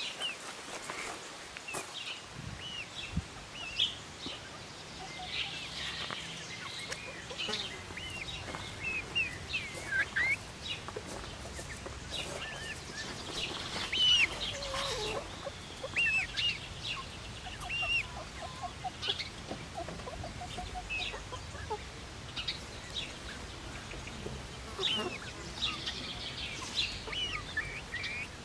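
Young Silkie chickens, two to three months old, calling: many short high peeps and chirps scattered throughout, with a few lower clucks among them.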